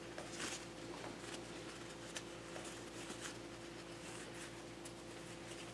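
Faint rubbing and light clicks of a rag wiping grease off a pinball score reel part, over a steady low hum.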